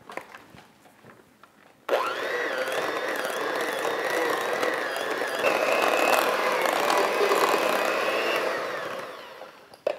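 Electric hand mixer switched on about two seconds in, its beaters running through a thick cheese-and-butter mixture in a stainless steel bowl with a steady motor whine. The whine steps up in pitch about halfway through, and the mixer runs down and stops near the end.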